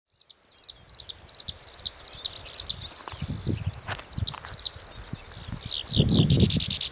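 Black-browed reed warbler singing: quick runs of short, high, repeated notes, some in rapid falling strokes, with hardly a pause between phrases.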